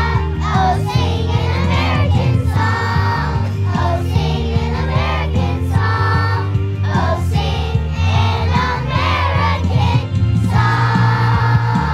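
Music with singing: a sung melody over a steady bass accompaniment, with a short break about ten seconds in before a held chord.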